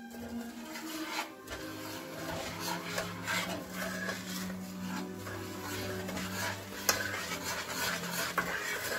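Metal spoon stirring sugar and evaporated milk in a stainless steel pot, scraping stroke after stroke against the pot. Christmas music from a radio plays under it.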